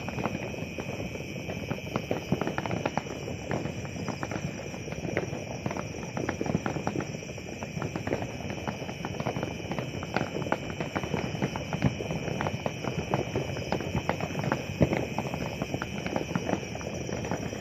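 Fireworks crackling and popping without a break: a dense, irregular run of small sharp bangs, many each second.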